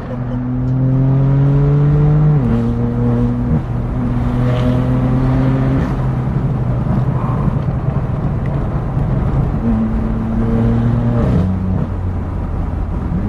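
Car engine pulling through the gears: its note climbs slowly, drops sharply at a gear change a couple of seconds in, then holds a steady pitch, with another drop late on.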